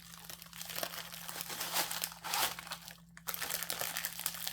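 Plastic packaging crinkling and rustling as it is handled, in irregular bursts with a brief pause about three seconds in.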